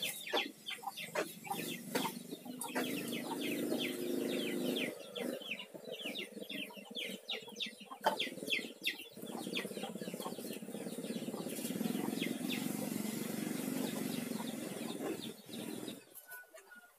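Chickens clucking, many short calls in quick succession that thin out about halfway through.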